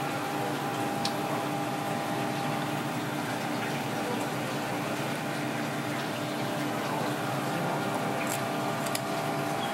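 Steady kitchen background noise: a constant rushing hiss with a steady hum. A few faint sharp snips of kitchen scissors cutting through raw fish come about a second in and twice near the end.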